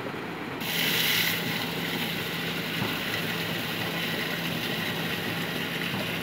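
Steady rushing water. About half a second in it gives way to louder water noise with a steady low machine hum, from manganese ore and sand being washed with water through a steel-barred grating.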